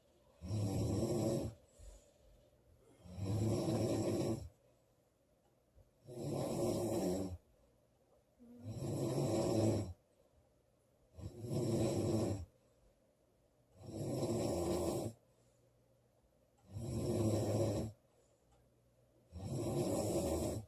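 A woman snoring loudly in her sleep, in a steady rhythm: eight snores of about a second each, one every two and a half to three seconds, with quiet breathing between them.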